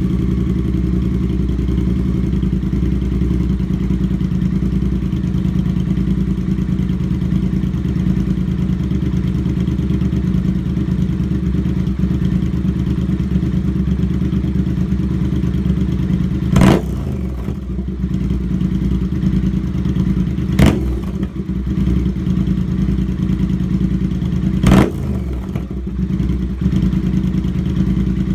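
2016 Triumph Thruxton R's 1200 cc parallel-twin idling steadily and loudly through a de-catted Meerkat pipe and Cone Engineering shorty silencers. In the second half the throttle is blipped three times, each a brief rev that rises and drops straight back to idle.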